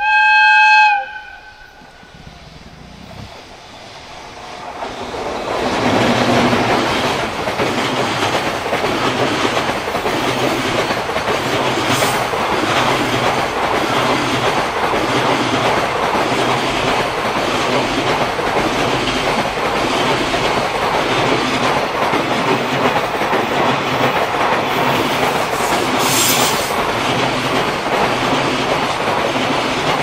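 JR Freight EF210 electric locomotive sounding its horn in one short blast of about a second, a courtesy toot for children watching the train. The long container train then draws near and passes close by, its wagons making a steady rumble with a rhythmic clickety-clack of wheels over the rail joints.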